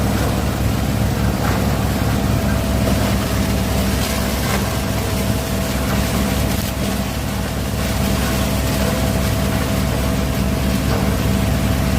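Waste-sorting machine with its conveyor belt running: a steady motor drone with a constant higher whine over it.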